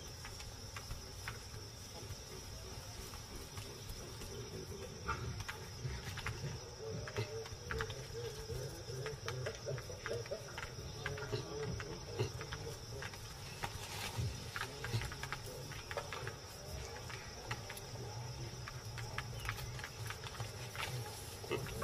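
Faint insect chorus, a steady high trill like crickets, with scattered small clicks and a low rumble beneath.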